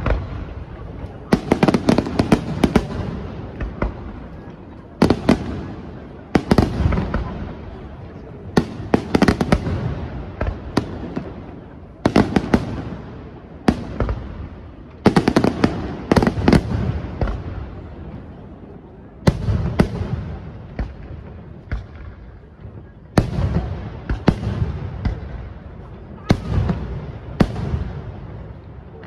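Aerial firework shells bursting in quick succession, a sharp bang every second or two. Each bang is followed by a spatter of smaller cracks and trails off with an echoing rumble.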